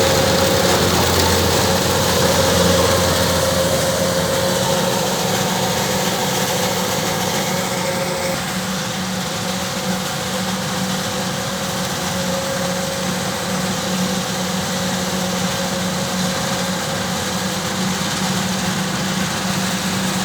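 Kubota DC-105X rice combine harvester running steadily, its diesel engine droning under the whir and rattle of the machinery. A deep hum drops away a few seconds in, and a higher tone fades out about eight seconds in.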